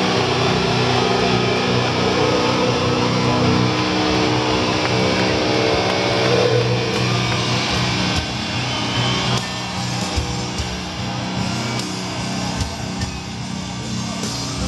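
Live heavy-metal band with a festival crowd: held, distorted electric-guitar notes ring out and fade about six seconds in. A rougher, quieter wash of crowd noise with scattered sharp claps is left.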